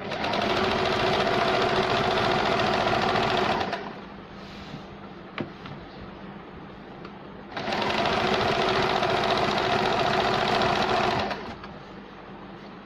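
Sewing machine running a zigzag stitch through a pico (rolled-hem) foot, hemming a saree edge: two steady runs of about four seconds each, separated by a pause of a few seconds with a light click or two.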